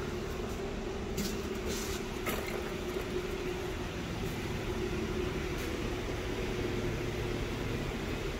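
Steady mechanical hum of running machinery, holding one even tone, with a few brief clicks or rustles about one and two seconds in.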